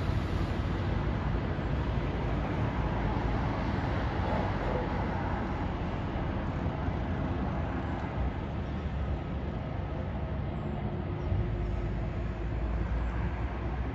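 Steady low rumble of distant traffic and engines, with no distinct events.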